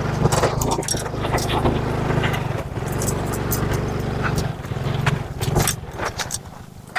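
Motorcycle engine running steadily at low speed over a rough dirt road, with many short clicks and rattles on top. The engine sound fades away about six seconds in.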